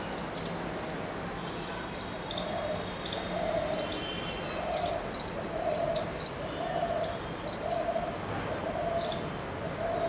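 Spotted dove cooing: a series of low, soft notes, all at the same pitch, repeated about once a second, starting about two seconds in.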